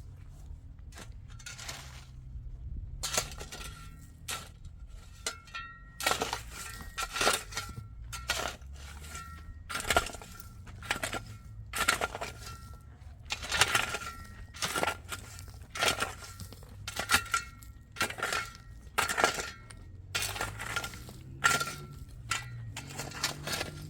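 Repeated sharp clinking, crunching strikes, a few scattered at first and then about one a second from about six seconds in.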